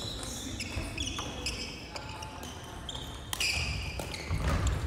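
Sneakers squeaking in short, high squeals on a wooden sports-hall floor during badminton play, with a few sharp racket hits on a shuttlecock.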